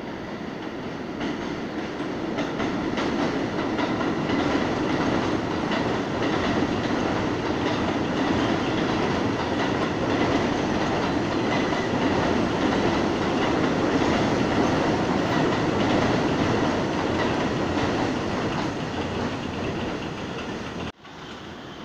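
New York City subway train running past on an elevated track, rail noise building as it comes in, holding loud for about fifteen seconds, then easing off as the last cars go by. A brief dropout just before the end.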